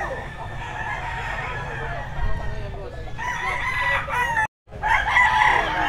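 Several roosters crowing in overlapping calls, with the loudest crows about three seconds in and again near the end.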